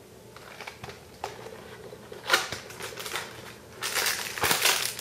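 Cardboard frozen-food box being opened and a plastic-wrapped Lean Pocket sandwich pulled out: a run of crackling, rustling and scraping noises that get louder about two seconds in and again near the end.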